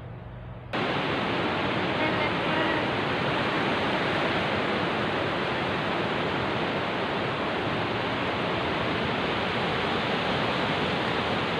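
Surf washing onto a sandy beach: a steady, loud rush of breaking waves that starts abruptly about a second in, after a moment of quiet room tone.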